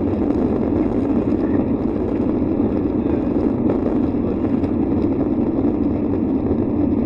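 Jet airliner's engines at takeoff power during the takeoff roll, heard inside the cabin as a loud, steady, even noise mixed with runway rumble.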